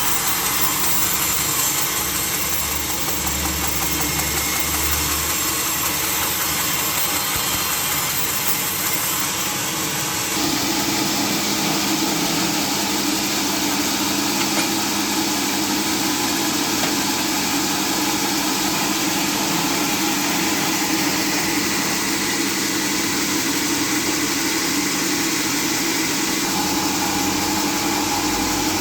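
Sawmill saw machinery running steadily, with a change in its sound about ten seconds in.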